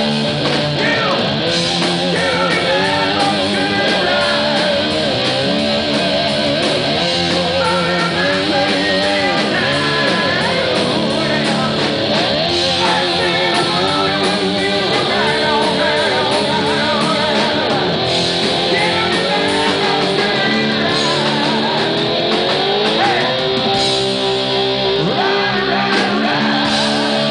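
Live hard rock band playing: electric guitar lead with bent, wavering notes over bass and drums, and a long rising glide on the guitar near the end.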